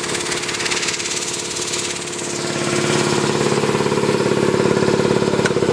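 Ingersoll Rand 120-gallon, 10 hp electric air compressor running, its belt-driven pump beating with a rapid, even pulse; it grows somewhat louder about halfway through.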